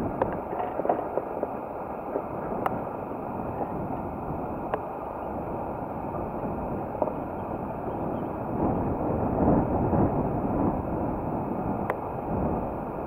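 Wind rushing over the microphone of a camera moving along on a bicycle, a steady noise that gusts louder about two-thirds of the way through, with a few sharp clicks.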